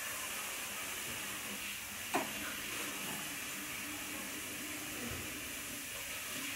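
Steady hissing noise, with one brief sharp sound about two seconds in.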